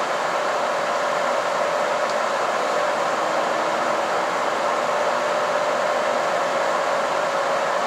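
Cabin noise inside a KiHa 261 series diesel express railcar moving slowly past a station platform: a steady mechanical hum and hiss with a steady mid-pitched whine.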